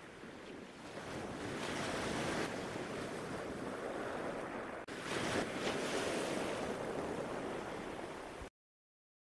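Wind buffeting the microphone over rushing surf and water spray, the sound track of kitesurfing footage. It breaks briefly about five seconds in, carries on, then cuts off suddenly shortly before the end.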